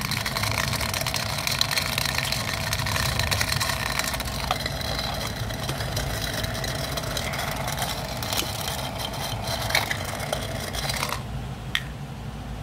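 Battery-powered toy blender's small motor running, a steady whir as the blade spins, then switched off near the end. The repaired motor now turns the blade; before the repair it would not spin.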